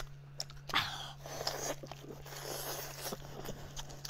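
Close-miked eating of a sauce-covered roast pork rib: chewing and biting, with many small clicks and a louder bite about a second in. A steady low hum runs underneath.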